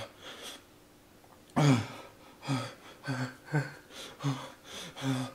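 A man's voice in short breathy sounds, gasping and exclaiming, reacting to the burn of the Paqui One Chip. A falling cry about one and a half seconds in is the loudest, followed by several brief voiced sounds.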